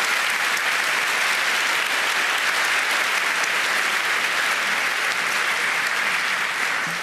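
A large audience applauding steadily, the clapping just starting to die down near the end.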